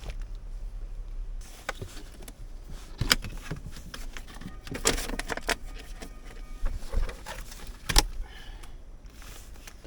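Things being handled inside a car: scattered clicks and knocks, the sharpest about three, five and eight seconds in, with light rustling between them.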